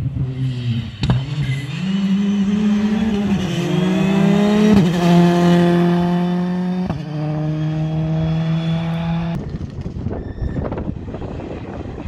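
Rally car engine at high revs, its note climbing as it accelerates, then dropping abruptly with gear changes about five and seven seconds in. A sharp crack about a second in. The engine sound stops suddenly near the end, leaving a rough rumbling noise.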